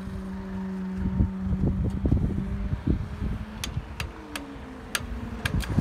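Level crossing barriers rising, their drive unit giving a steady hum, with wind buffeting the microphone. About six sharp clicks come in the last two seconds.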